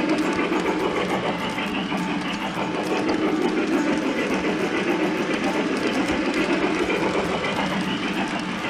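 Model Mikado steam locomotive and passenger train running along shelf track, close up: a steady rolling rumble with rapid fine clicking of the wheels over the rail joints.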